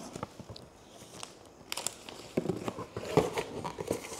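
Packaging rustling and crinkling as items are handled. It is quiet at first, with a run of crackly rustles and small clicks starting a little under halfway through.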